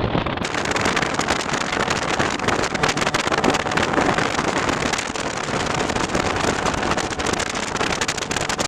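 Jet boat running at speed, its engine and rushing water mixed with heavy wind buffeting on the microphone; the noise cuts off suddenly at the very end.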